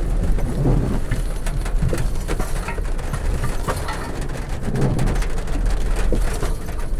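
Car driving slowly over a rough, waterlogged dirt track in heavy rain, heard from inside the cabin: a steady low engine and road rumble with many sharp raindrop hits on the roof and windshield.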